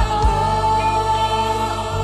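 Live gospel worship band playing, with a woman's voice holding one long note over the band's bass and drums.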